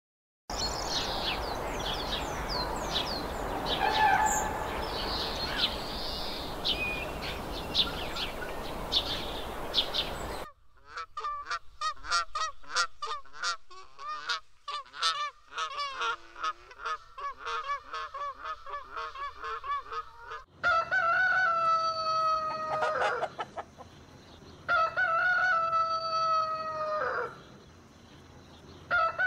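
Short high bird chirps over a steady hiss, then a quick run of repeated calls from black-necked swans, then a frizzle-feathered chicken crowing: long drawn-out crows that drop in pitch at the end, twice and once more at the very end.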